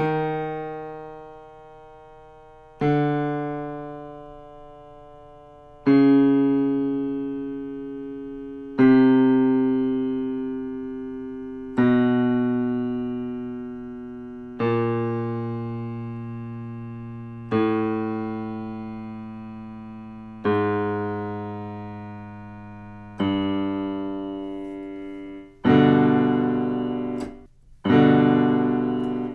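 Piano accompaniment for a low chest-voice warm-up: a chord is struck about every three seconds and left to ring and fade, eleven in all. Each chord sits a little lower than the last, stepping the exercise down through the low range.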